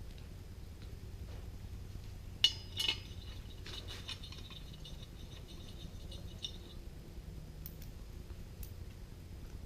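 Steel head bolts clinking against metal as they are handled and set into a Kohler K-series cylinder head: two sharp clinks about two and a half seconds in, a faint ringing that dies away over the next few seconds, then a few light ticks.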